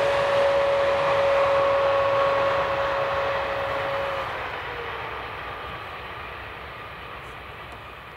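Train passing and moving away: a steady rumble with a high whine that drops slightly in pitch about four seconds in, the whole sound fading steadily through the second half.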